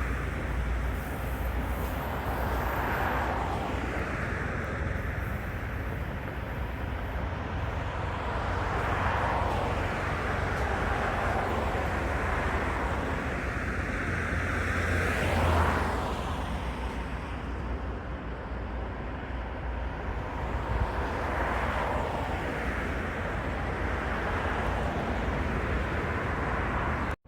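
Outdoor vehicle noise: a steady low rumble with a swell every several seconds, like vehicles going by. It cuts off suddenly near the end.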